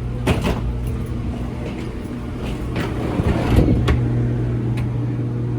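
Steady droning hum inside a Boeing 787-8 airliner cabin, with a few short clicks and knocks about a third of a second in and again around the middle.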